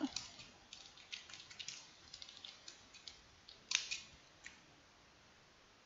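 Computer keyboard typing: a quick, irregular run of light key clicks, with one louder click near four seconds in, stopping shortly after.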